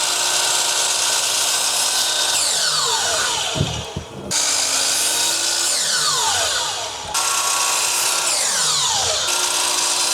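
Power tool working wood, running steadily with repeated falling streaks in the noise. It breaks off and restarts abruptly several times, as short clips are spliced together.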